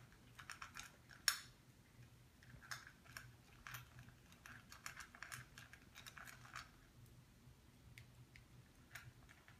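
Faint, irregular crunching and clicking of pets eating dry food from bowls, thinning out after about seven seconds.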